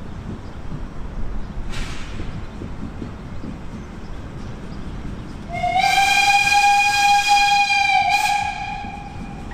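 Narrow-gauge steam locomotive's whistle giving one long blast of about two and a half seconds, over a low rumble, as the train approaches a level crossing. The blast starts a little past halfway, with a slight upward slide at its onset, and dies away near the end.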